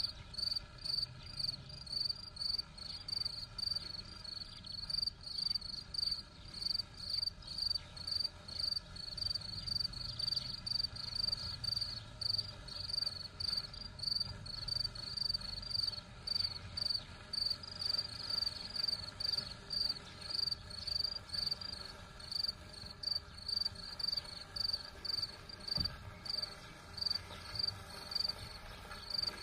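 Cricket chirping steadily, about two short high chirps a second.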